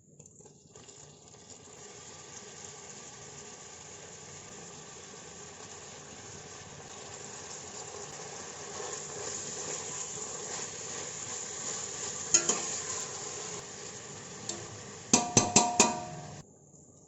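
Food sizzling as it fries in hot oil while being stirred. A metal spoon knocks against the pot once past the middle and several times in quick succession near the end, then the sound cuts off abruptly.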